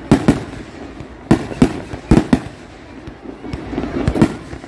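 Fireworks display: aerial shells bursting in a rapid series of sharp, loud bangs, about eight in under five seconds, often in quick pairs.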